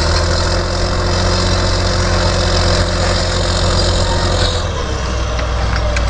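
Heavy diesel engines of a tracked excavator and a crawler bulldozer running steadily, with a high whine over them that stops near the end.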